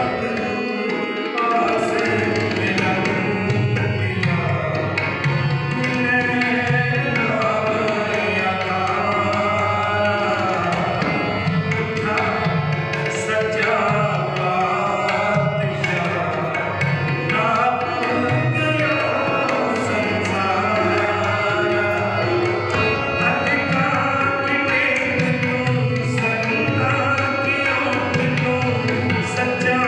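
Harmonium and tabla playing Sikh devotional kirtan music, with held harmonium chords over a steady tabla rhythm.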